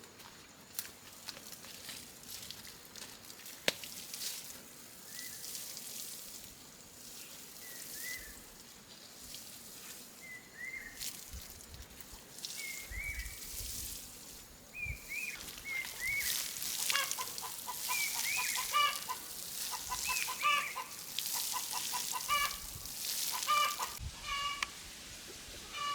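Chickens clucking and calling. Scattered short calls give way, from about two-thirds of the way through, to a busy run of quick repeated clucks.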